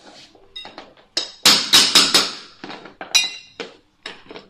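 Hammer striking a steel pull bar hooked over the last row of SPC vinyl planks against the wall, tapping the click-lock joint shut. Sharp taps come in quick bursts of several strikes, some with a metallic ring.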